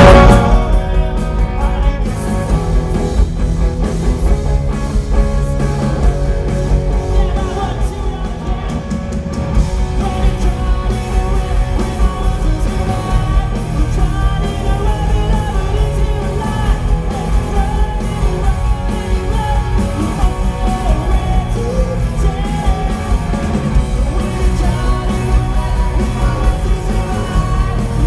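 A rock band playing live: a drum kit and electric guitars, with a singer's voice over them, loud and continuous.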